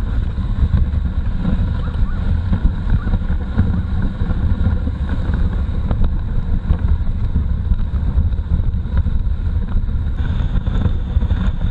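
Steady, loud low rumble of wind buffeting the camera's microphone on a dog sled running fast over snow at about 30 km/h.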